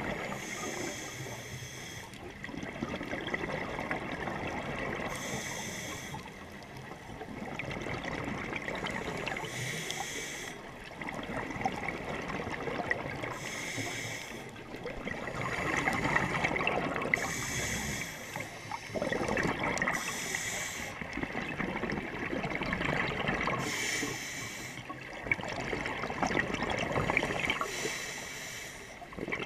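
Scuba diver breathing through a regulator underwater. A hiss comes with each inhale and a bubbling gurgle with each exhale, repeating about every three to four seconds.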